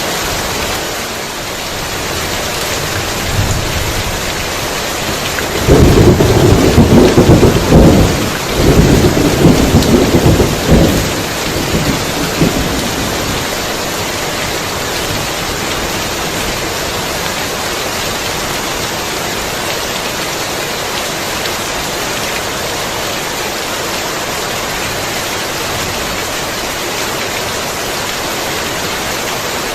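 Steady heavy rain with a clap of thunder a few seconds in: a loud rumbling crash that rolls on for about six seconds and dies away, leaving the rain hissing on.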